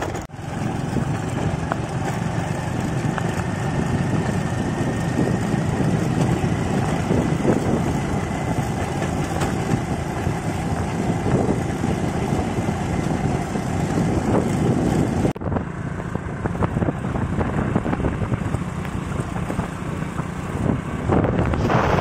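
Motorcycle engine running on the move, with wind rushing over the microphone. It cuts off sharply about fifteen seconds in and picks up again slightly quieter.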